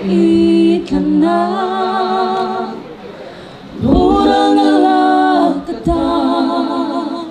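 A mixed group of five young voices, men and women, singing a cappella in harmony through microphones, holding long chords phrase by phrase. There is a short quieter break about three seconds in before the next phrase.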